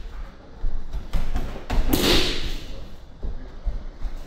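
A few thuds and swishes on tatami mats, with the loudest about two seconds in: an aikido partner being thrown and landing in breakfalls, his body and training uniform hitting and brushing the mat.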